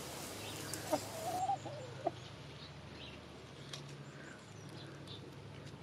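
Domestic hens clucking softly, with one drawn-out, wavering call about a second in, then only faint quieter sounds.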